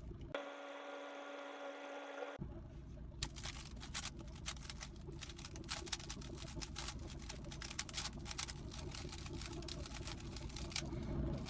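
A steady electronic tone lasts about two seconds near the start. Then comes a fast, irregular clatter of clicks from a GAN 15 speedcube's plastic layers being turned rapidly during the execution phase of a blindfolded solve.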